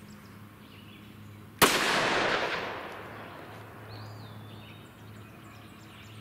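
A single shot from a Glock 29 subcompact 10mm pistol about one and a half seconds in, its sharp report dying away in an echo over the next second. The pistol is firing 180-grain XTP ammunition into a ballistics gel block.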